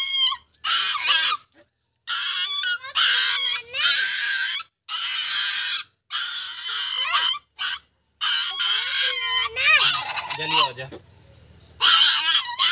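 Puppy squealing and yelping in about a dozen loud, high-pitched cries in quick succession, distress at being bathed.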